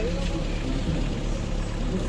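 Steady low engine rumble, like an idling vehicle or generator, with faint music and voices mixed in.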